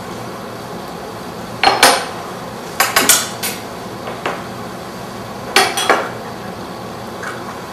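China teacups, saucers and teapot clinking and clattering as tea is served, in four short clusters of sharp clinks.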